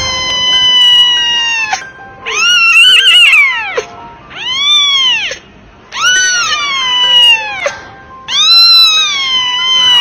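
A very young kitten meowing loudly: five long, high-pitched cries in a row, each a second or two long, some rising and then falling in pitch.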